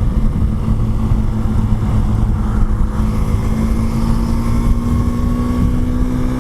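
2016 KTM Duke 390's single-cylinder engine pulling at highway speed, its note creeping slowly higher as the bike gains speed, under a heavy rush of wind.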